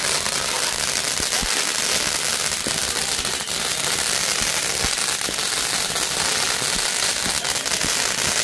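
Several ground fountain fireworks spraying sparks at once: a steady hiss with scattered crackles and small pops.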